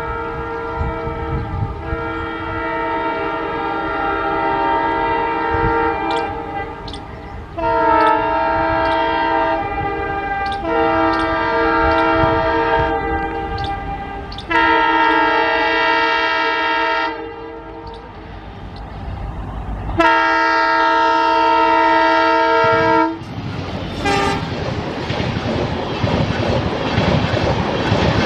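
WDP4D diesel locomotive's horn sounding a multi-tone chord: one long blast of about seven seconds, then four shorter blasts of two to three seconds each as the train approaches at speed. In the last few seconds the horn stops and the passing train's wheels clatter over the rail joints.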